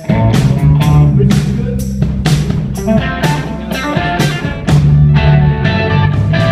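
A rock band kicks in all at once with electric guitar, bass and drums, and plays on at a steady beat.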